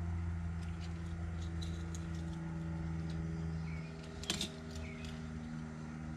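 Faint small metal ticks and clicks from a torch tip cleaner wire being worked through a tiny carburetor pilot jet, with one sharper click about four seconds in, over a steady low hum.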